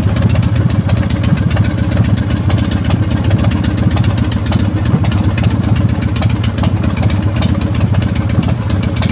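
Big Dog chopper's V-twin engine idling steadily while it warms up after starting without trouble.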